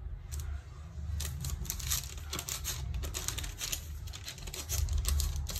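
Parchment paper crinkling and rustling as it is handled, a dense run of quick, crisp crackles, over a steady low hum.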